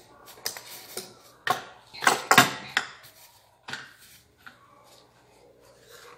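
Kitchen handling sounds: a handled wooden dough roller rattling and knocking as it is worked over the countertop, a cluster of sharp clatters about two seconds in, then a few lighter knocks.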